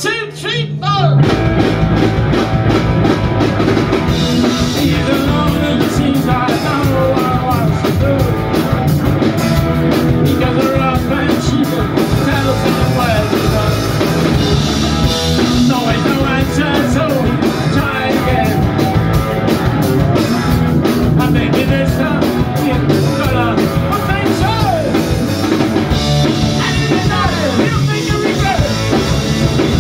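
Live punk rock band playing loud with electric guitars and a drum kit, a man singing lead; the full band comes in about a second in.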